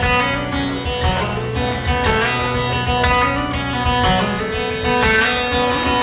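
Solo acoustic guitar playing the instrumental introduction to a song, with no voice.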